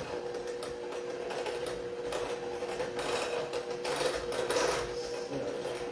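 Electric hand mixer running steadily, its beaters whirring through the wet pumpkin bread mixture of puree, oil, sugar and eggs in a bowl.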